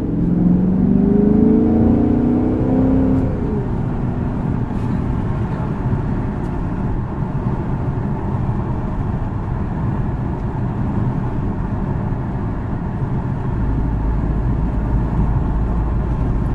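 Dodge Charger SRT's 6.4-litre HEMI V8 with a Corsa exhaust, heard from inside the cabin, accelerating with its note rising for about the first three seconds, then settling into a steady cruising drone.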